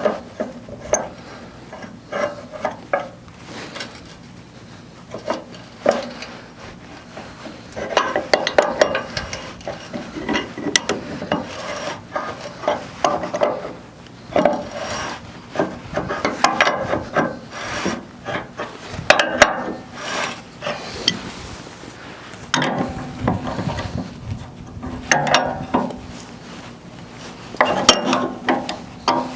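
Irregular scraping, rubbing and sharp clinks of hand-tool work on a sawmill's bed supports as they are adjusted to raise the bed, coming in bursts of a few seconds with short pauses between.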